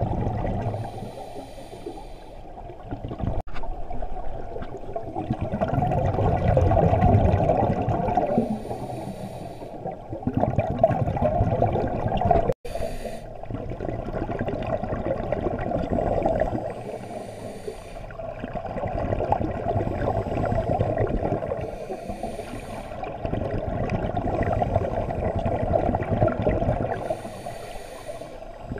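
Scuba diver breathing through a regulator underwater. Every five seconds or so a short hissing inhale is followed by a longer rush of exhaled bubbles.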